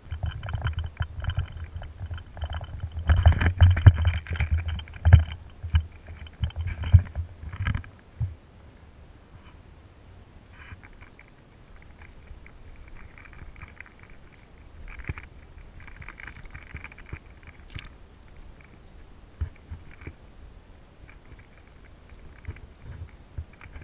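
Rumbling, knocking and scraping on a GoPro camera's microphone from handling and gear moving, heaviest in the first eight seconds, then lighter intermittent scraping and rustling.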